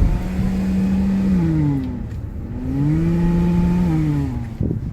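2018 Honda Pilot's rear air-conditioning blower running at a high fan setting, making a loud droning hum over a low rumble. The hum sags in pitch and comes back up twice. This abnormal noise gets louder the higher the rear fan is set.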